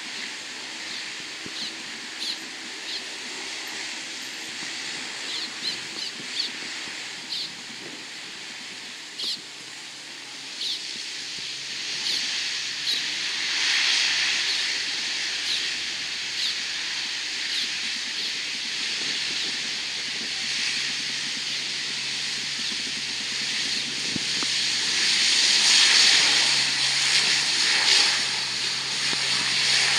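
Lockheed C-130H Hercules's four Allison T56 turboprops running as it powers up for takeoff: a steady hissing whine that swells about halfway through and again, loudest, near the end. A low steady hum joins it in the second half.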